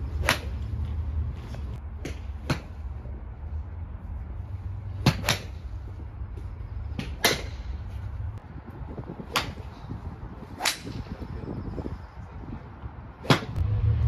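Golf clubs striking balls off driving-range mats: about nine sharp cracks at uneven intervals, the first just after the start, over a low steady rumble.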